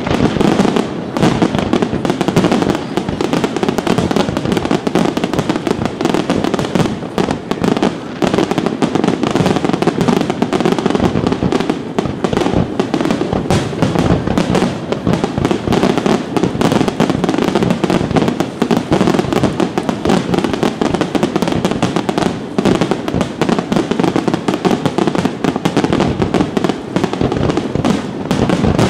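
Aerial firework shells bursting in a dense, continuous barrage of overlapping bangs.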